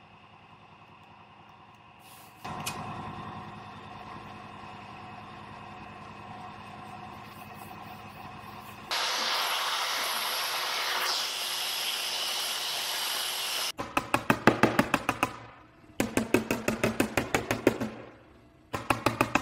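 A steady hum, then a louder hiss for about five seconds, followed by three bursts of rapid hammer taps, about six a second, on an aluminum car hood. The taps knock down the metal around dents that a stud dent puller is holding up.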